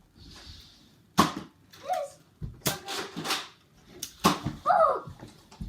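A few sharp knocks and thuds, about a second and a half apart, mixed with short high cries that rise and fall in pitch.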